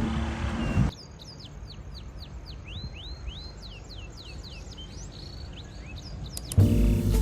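Birds chirping: many quick sliding whistled notes, mostly falling in pitch. Background music cuts off about a second in and comes back loudly near the end.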